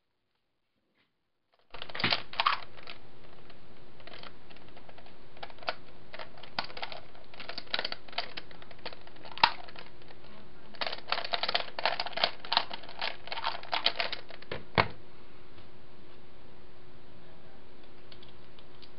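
Plastic clicking and clacking of a Skewb twisty puzzle being turned rapidly by hand, in quick clusters of clicks. The clicking starts about two seconds in and stops about fifteen seconds in with one louder knock. A faint steady hum runs underneath.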